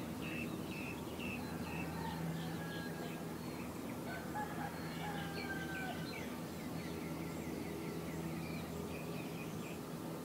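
Birds calling with many short repeated chirps and a few gliding whistled notes, over a steady low hum.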